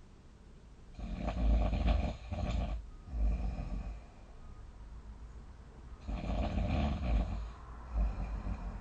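A person snoring heavily in sleep: two loud snores about five seconds apart, each lasting two to three seconds with a brief catch partway through.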